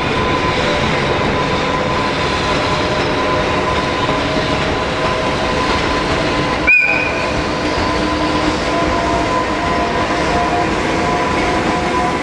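JR Freight EH500 electric locomotive hauling a container freight train past, its wheels and wagons making a steady rumble. About seven seconds in, one short blast of the locomotive's AW-2 whistle horn.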